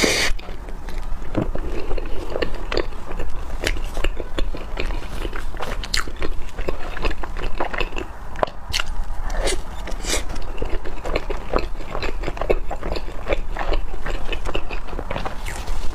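Close-miked eating sounds: someone biting into and chewing soft custard bread dipped in chocolate sauce, with many short irregular mouth clicks and smacks.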